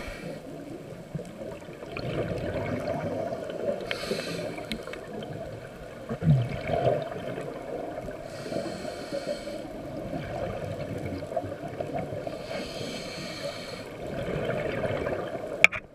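Muffled rushing water noise picked up by a camera held underwater, with a louder hissing swell about every four seconds. A short gurgle comes about six seconds in, and a sharp click comes near the end.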